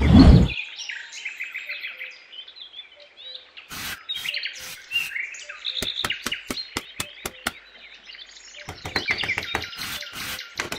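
A loud whoosh in the first half second, then small birds chirping, with sharp clicks and taps scattered through the second half.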